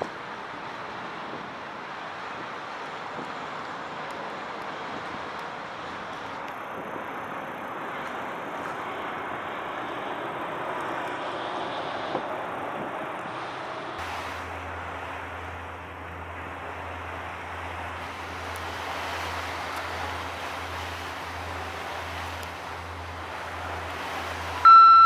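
Steady outdoor rumble of wind and engine noise. About halfway through, a low steady hum with a slow pulse joins in. Just before the end, a loud chime of several clear tones starts.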